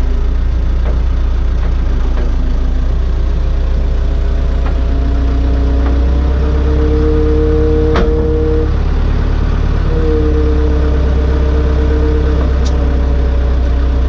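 CAT 426 backhoe's diesel engine running steadily under the operator, with a higher steady hydraulic whine coming in twice as the backhoe arm swings and moves, about five seconds in and again about ten seconds in. A single sharp metallic knock about eight seconds in.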